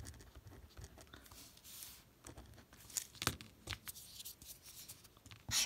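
Zebra Sarasa R gel pen scratching across a paper test card as a word is written, followed by soft paper rustles and clicks as the card is handled, with one sharper rustle near the end.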